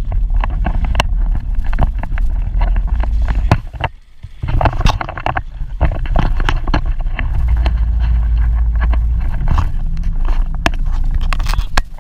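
Jet ski under way, its engine running with a heavy low rumble, frequent sharp knocks and wind on the microphone. The sound dips briefly about four seconds in.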